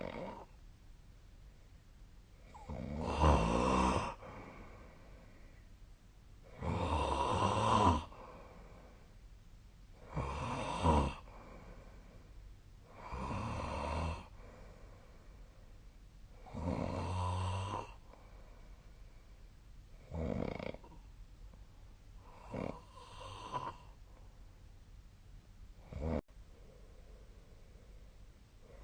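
A sleeping person snoring, one snore about every three to four seconds, seven in all, the later ones shorter and weaker. A single sharp click near the end.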